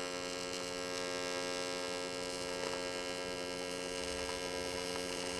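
AC TIG welding arc on aluminum buzzing steadily, an even electrical hum with no break.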